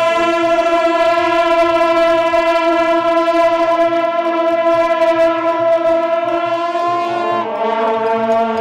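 Procession music of long held, reedy wind-instrument notes, the pitch shifting about seven and a half seconds in.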